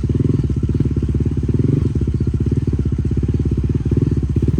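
Motorcycle engine running steadily close by, a rapid even beat of firing pulses.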